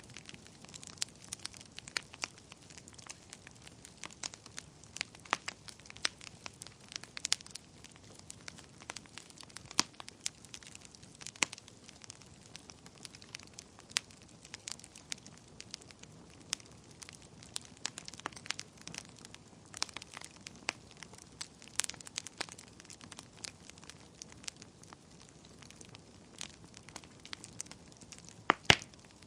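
Wood fire crackling in a fireplace: irregular sharp pops and snaps over a low hiss, with one louder pop near the end.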